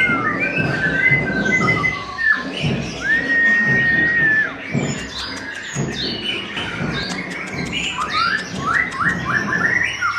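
A songbird singing: long clear whistled notes, one held level for about a second and a half, mixed with short chirps, then a quick run of short rising notes near the end, over a steady low background rumble.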